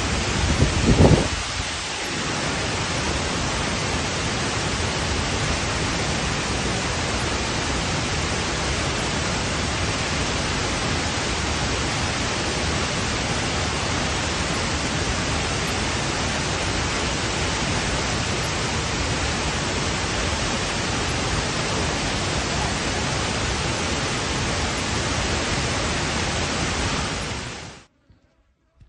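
Large waterfall: a steady, loud rush of whitewater falling down a rock face. About a second in there is a brief, louder low rumble, and the rush cuts off suddenly near the end.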